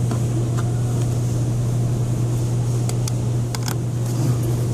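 A few short clicks of the plastic amplifier cover and its body clips being pressed into place, over a steady low hum.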